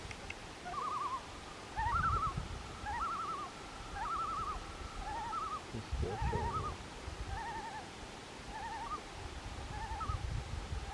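Two common loons giving wavering tremolo calls, overlapping, one voice pitched a little higher than the other. The pair are calling at each other in a display. Low knocks sound a couple of times underneath.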